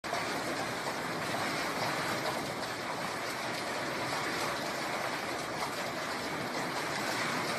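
Heavy hail and rain pelting the ground in a dense, steady hiss.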